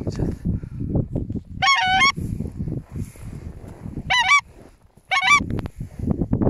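Geese honking: three short, high-pitched calls about two, four and five seconds in, over a constant low rumble.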